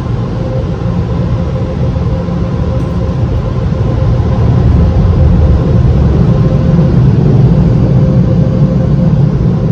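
Automatic car wash air-dryer blowers running, a loud steady rush of air with a faint steady hum, heard from inside the car's cabin. It grows louder about four seconds in.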